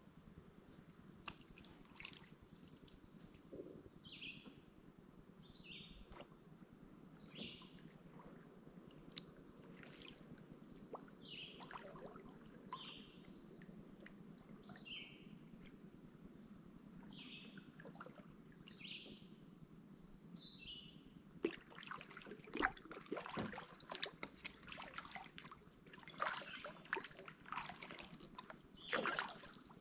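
A songbird singing short phrases over and over, each one sliding down in pitch, about every one to two seconds. From about two-thirds in, a kayak paddle dips, with splashes and dripping water.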